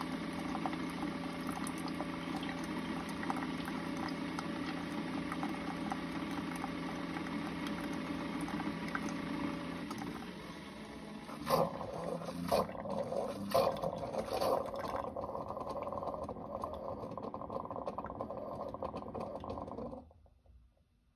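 Single-serve coffee brewer pumping hot water into a mug: a steady pump hum with the pour running, then several sharp sputtering bursts a little past halfway as the brew cycle ends. The machine cuts off suddenly near the end.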